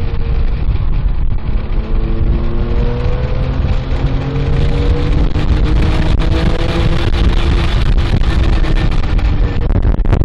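Porsche 997.1 GT3's flat-six engine running hard on track, its note climbing slowly in pitch as the car accelerates. Heavy wind and road rumble are heard inside the cabin.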